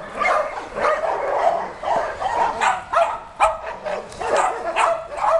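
Dog barking again and again, about two short barks a second.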